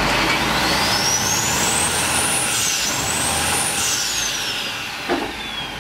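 Steady rush of wind and boat-engine noise aboard a fishing trawler at sea. Over it a thin high whine rises for about two seconds, dips, then falls away slowly. A short knock comes about five seconds in.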